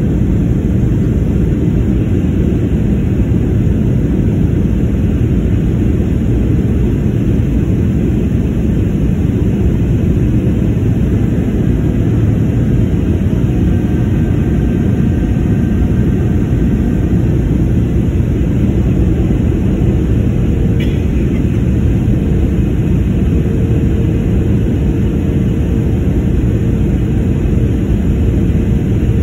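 Steady engine and airflow noise heard inside the cabin of a Boeing 737 descending on approach to land with its flaps extended. A faint steady hum joins in about two-thirds of the way through.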